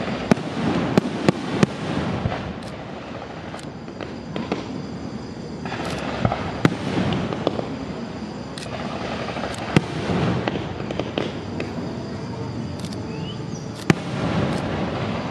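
Aerial firework shells bursting in a display: a series of sharp bangs at irregular intervals, several in quick succession near the start, over continuous crackling and rumble.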